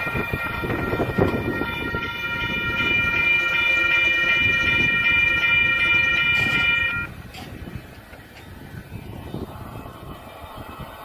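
Union Pacific freight locomotive's air horn sounding one long steady chord over the rumble of the moving train, cutting off suddenly about seven seconds in. The train's rumble carries on more quietly afterwards.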